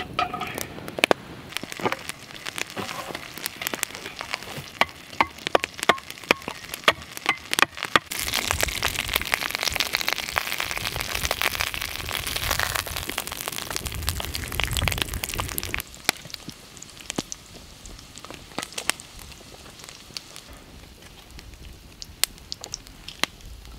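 Wood campfire crackling and popping, then bear meat sizzling in a cast-iron skillet over the flames, a steady hiss full of pops. About two-thirds of the way in the sizzle cuts off suddenly, leaving quieter scattered clicks.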